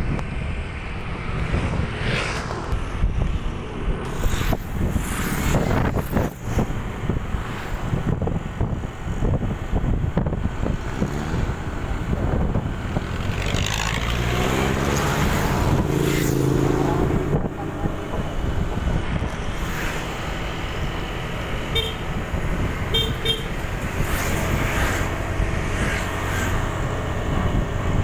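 Steady engine and wind noise from riding a motorcycle on a road. About halfway through, a passing vehicle's engine rises and fades. A few short horn beeps sound soon after.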